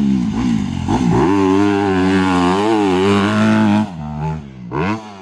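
Dirt bike engine revving as it is ridden, its pitch dipping sharply about a second in and climbing again as the throttle is worked. The engine backs off a little before four seconds in, with a short throttle blip near the end.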